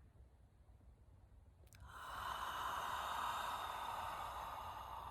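A woman takes one long, deep breath close to the microphone. It starts about two seconds in, just after a faint click, and slowly fades.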